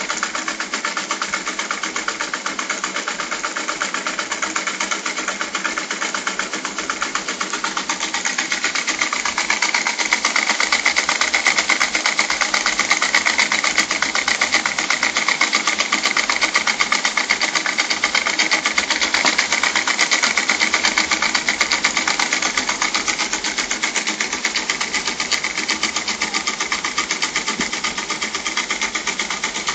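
Small single-acting rotary-valve model steam engine running fast, with a rapid, even beat. It grows a little louder for a stretch in the middle.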